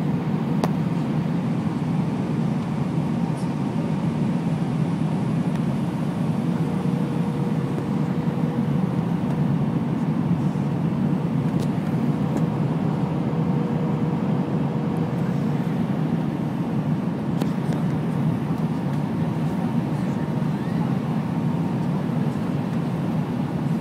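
Steady cabin noise inside an Airbus A321 on final approach with flaps extended: air rushing past the fuselage and the engines running, a deep even rumble with a faint steady hum over it.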